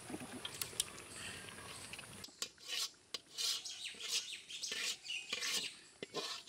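A metal cooking utensil scraping and clinking against a metal pot of biryani, in a run of short, irregular scrapes with a few sharp clicks.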